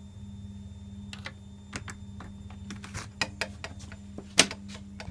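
A small metal keyring door-opener tool clicking and scraping against the brass knob of a rim night latch as it is used to turn the latch: a run of light irregular clicks, with one much sharper click about four and a half seconds in, over a steady low hum.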